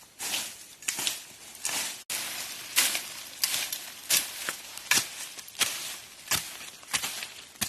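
A steady series of crunching strikes, about one and a half a second, each a short sharp crunch that trails off quickly.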